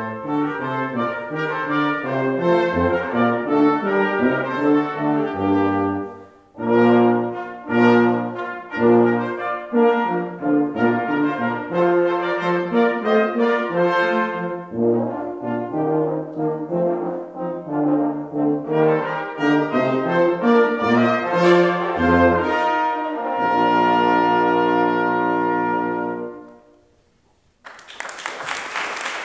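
Small brass ensemble of trumpets and tuba playing a piece in chords, closing on a long held final chord that fades out. Audience applause breaks out just after, near the end.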